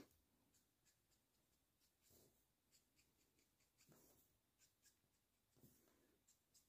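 Very faint Copic alcohol marker making short strokes and dabs on paper, heard as scattered soft scratches and ticks.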